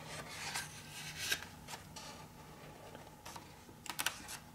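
Paper pages of a printed data manual being flipped by hand: a run of faint, short rustles and flicks, with a quick cluster about four seconds in.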